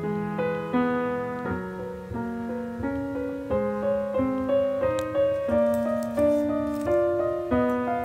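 Slow, gentle piano music, with single notes struck about every half second, each one fading before the next.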